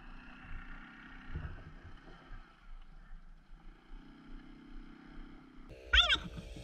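A dirt bike engine idles faintly and steadily. Near the end comes a sudden, short, loud pitched sound that rises and falls in pitch.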